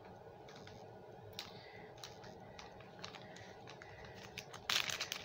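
Faint, scattered clicks and light crinkling as a small clear plastic bag holding a metal pendant is handled. A louder rustle of the plastic comes near the end.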